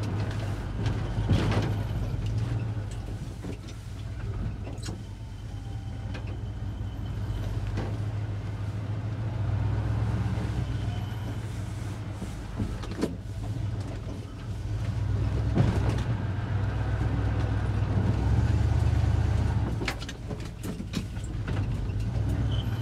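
A truck engine running as the truck moves slowly through snow, its rumble rising and falling with load, with several sharp knocks along the way.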